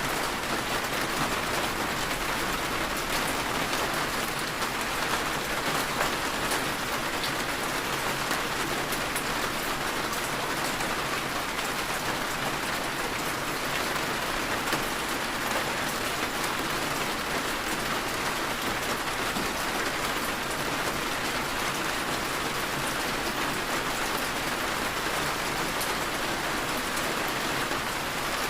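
Steady heavy rain falling, an even hiss of drops with faint individual drips.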